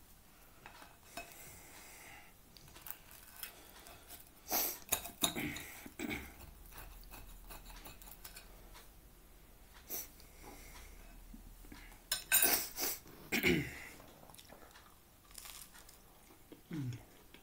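Cutlery clinking and scraping against a plate in scattered short clatters, heaviest around the middle, as a pizza slice is cut, followed near the end by chewing.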